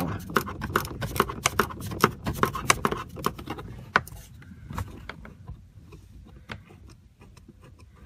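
Ratcheting 8 mm flex-head gear wrench clicking in quick succession as it backs out an actuator mounting screw. The clicks thin out to a few scattered ones after about four seconds.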